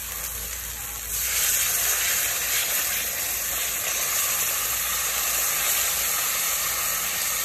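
Water poured into a kadhai of hot fried masala paste sets off a sudden loud sizzle about a second in, which carries on as a steady hiss while the spatula stirs the mix into gravy.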